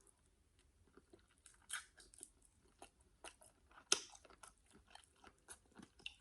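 Close-miked chewing of jumbo shrimp: irregular soft wet mouth smacks and clicks, with louder ones about two and four seconds in.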